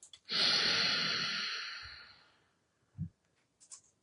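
A person's long sigh, starting suddenly and fading out over about two seconds, followed by a soft thump.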